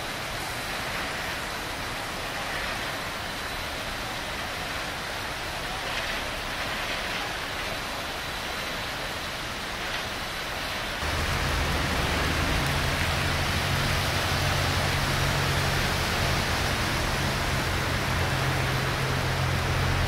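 Traffic driving through a flooded street: a steady rushing wash of water and tyre noise. About halfway through it gets louder, with a low engine rumble of vehicles close by.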